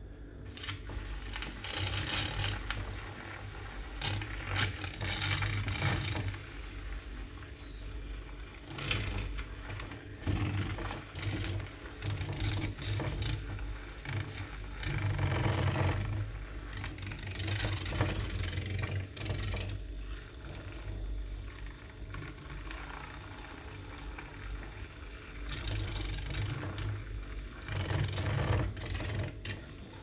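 Handheld battery-powered milk frother running, its wire whisk spinning in a small plastic tub of powdered lorikeet food and water; a small-motor whir whose loudness rises and falls as the whisk is moved around.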